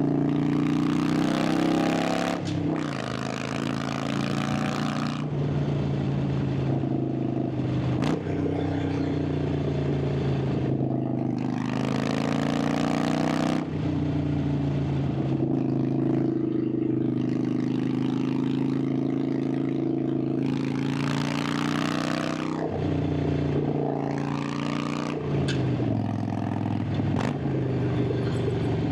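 Harley-Davidson Sportster 883's air-cooled V-twin running under way, its exhaust note rising and falling several times as the rider works the throttle and shifts gears. Stretches of hiss come and go over the engine.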